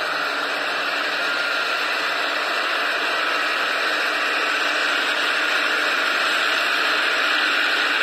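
Yanmar rice combine harvester running in the field, heard as a steady hissing mechanical din with no distinct engine beat, growing slightly louder.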